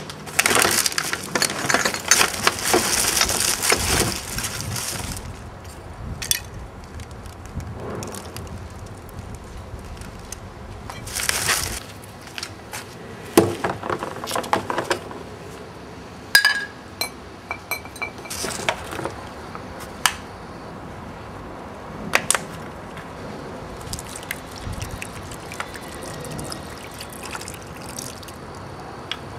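Handling sounds: a few seconds of rushing, splashing noise near the start and again about 11 seconds in, then scattered sharp clinks and knocks of glass or other hard objects.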